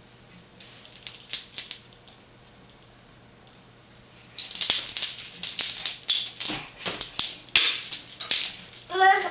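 Wooden beads and rings hanging from a baby play gym rattling and clacking as a baby grabs and shakes them. A few light clacks come about a second in, then a fast, loud run of clattering from about four seconds on. A child's voice starts just at the end.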